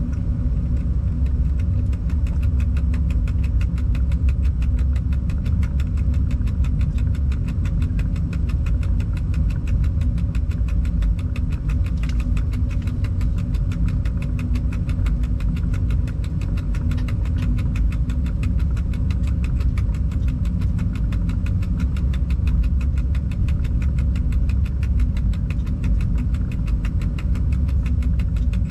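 Steady low rumble of a locomotive heard from inside its cab as it rolls slowly along a yard track, with a fast, even ticking over the top from about a second in.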